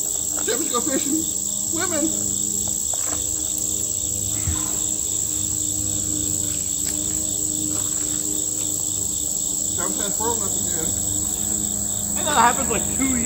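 Insects chorusing: a steady high-pitched drone with a second, pulsing trill below it.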